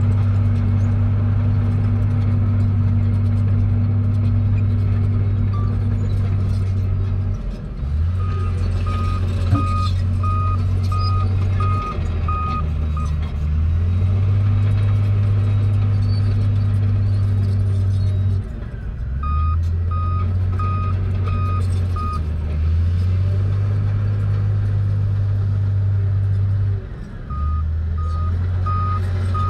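Komatsu crawler bulldozer's diesel engine running steadily under load, its note dipping briefly several times as the machine changes direction. A reverse alarm beeps in three stretches, at about one and a half beeps a second, as it backs up.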